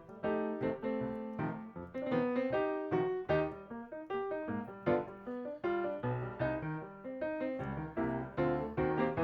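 Background piano music, a steady run of quick notes with chords underneath.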